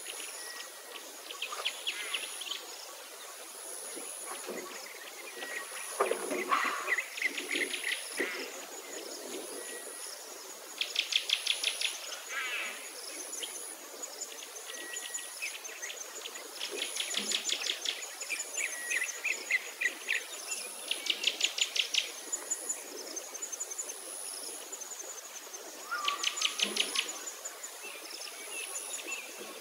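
Birds singing, the loudest a rapid trill about a second long that comes back every few seconds, with shorter chirps between, over a high thin note that pulses about once a second.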